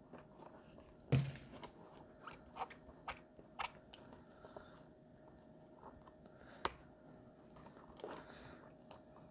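Faint scattered clicks, taps and crackles of hands handling and pressing on a 3D-printed plastic boat hull, with one louder knock about a second in, over a faint steady hum.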